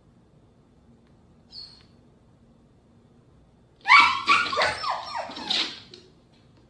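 Dogs barking and yipping in a quick excited run of high calls lasting about two seconds, starting about four seconds in, after a single faint short whine about a second and a half in.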